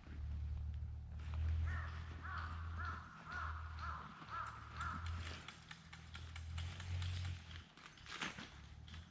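A bird calls a quick run of about eight short notes, over a low rumble that comes and goes, with scattered clicks and crunches in the second half.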